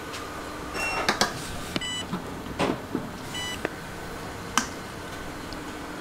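Three short electronic beeps from repair-bench equipment, at about one, two and three and a half seconds in, amid a few sharp clicks and taps of tools on the bench.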